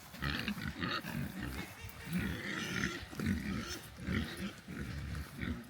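Dog panting steadily in a repeating rhythm, a couple of breaths a second, the sign of a dog overheated on a hot day.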